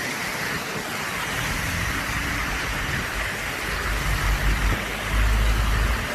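Steady hiss of traffic on a wet, slushy road, with a vehicle's low rumble building about four seconds in as it passes close.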